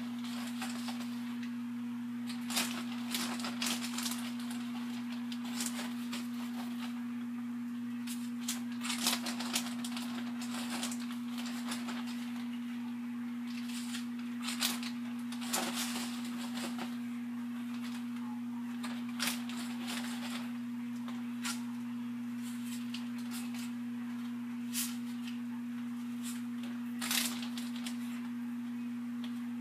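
Steady low electrical hum at one pitch. Over it come intermittent crinkling and light knocks from handling a plastic bag and laying breaded fish fillets into an air fryer basket, about a dozen brief bursts.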